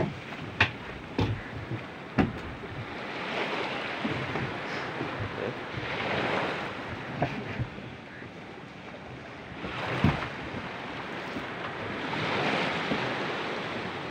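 Wind on the microphone and water lapping against a small wooden boat, swelling in a few slow surges. A few sharp knocks come in the first couple of seconds and a louder one about ten seconds in.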